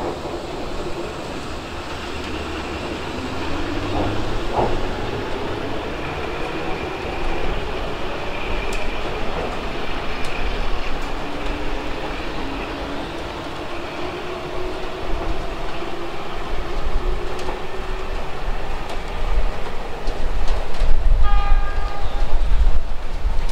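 Keihan 2200-series electric train pulling out and accelerating away over the rails, its traction motors humming and slowly rising in pitch as it gathers speed. Near the end a short horn blast of about a second sounds over a low rumble.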